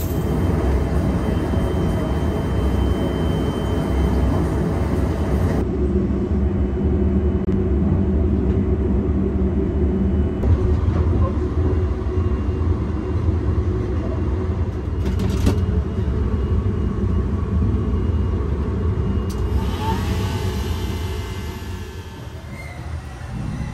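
Steady low rumble of the Sunrise Seto/Izumo 285-series sleeper train running, heard from inside a carriage, with a hiss over it for the first several seconds.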